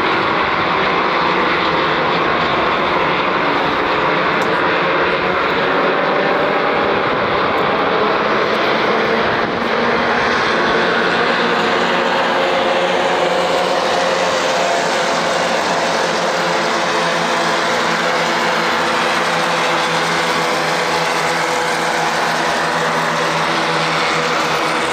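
Air-cooled Volkswagen flat-four engine noise of Formula Vee racing: a loud, unbroken engine drone held at racing speed, its pitch drifting only slightly.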